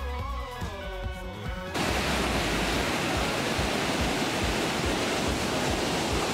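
Background music that cuts off abruptly under two seconds in, replaced by the steady, even rush of a fast whitewater mountain river.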